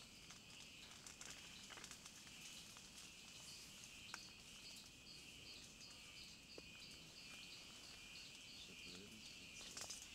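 Faint rainforest ambience: a steady insect drone with a higher chirp pulsing about three times a second, and a few soft clicks.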